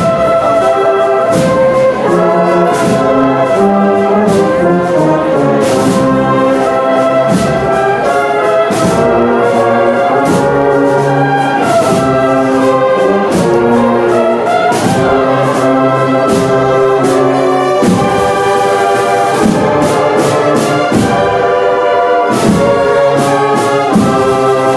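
Brass band with drums playing a slow processional march, held brass chords over a steady drum beat.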